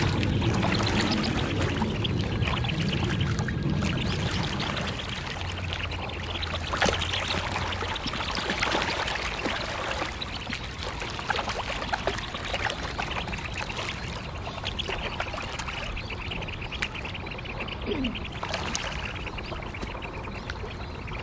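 Mandarin ducks paddling and jostling in a tight flock, their splashing churning the water steadily. The splashing is loudest at first while they crowd together, then eases as they spread out.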